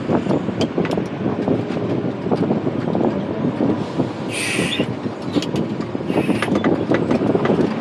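Wheel loader's diesel engine running with a dense mechanical rattle and clatter. Two short hisses come about four and six seconds in.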